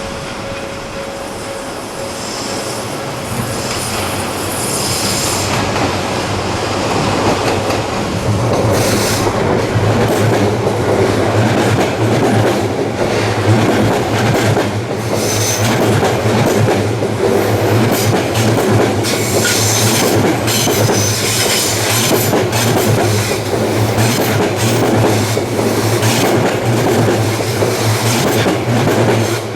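Electric Odakyu Line train passing at close range. Its wheels clack over rail joints, with patches of high wheel squeal. It grows louder over the first several seconds, then stays loud as the cars go by.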